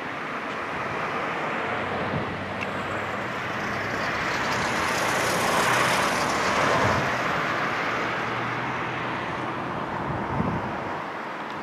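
Road traffic: cars passing on the street with steady tyre and engine noise. The noise swells to its loudest about six seconds in as a car goes by close, then eases off.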